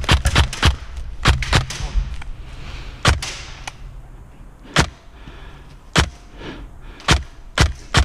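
Airsoft guns firing single shots, a string of sharp cracks at uneven intervals, several in quick succession in the first second and a half and then one roughly every second.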